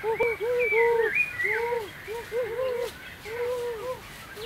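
Birds calling: a rapid run of short, arched notes, with higher whistled notes over them in the first second and a half.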